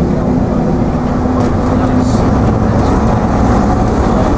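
Diesel engine and drivetrain of an AEC Routemaster coach bus under way, heard from inside the bus: a steady drone with a constant low hum, over road noise.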